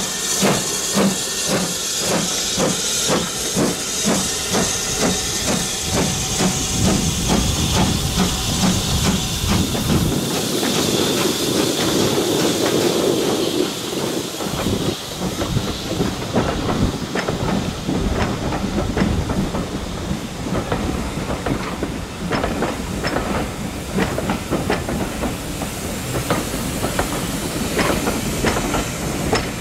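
BR Standard Class 4MT steam locomotive no. 76017 pulling away with a train, its exhaust beating slowly and evenly, about one and a half beats a second, with steam hissing. About a third of the way in a louder steady hiss takes over, then the coaches roll past with their wheels clicking over the rail joints.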